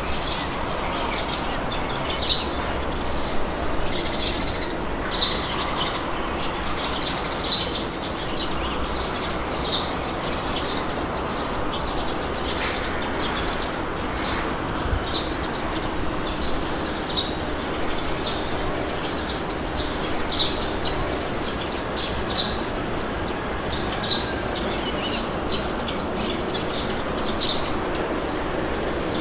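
Steady wind with birds chirping through it: short high chirps every second or so.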